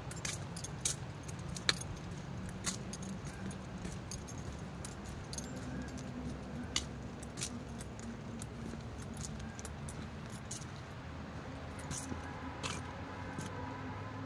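Light, irregular clicks and clinks, like jingling keys, carried by someone walking along a trail. They come in uneven clusters over a low steady rumble.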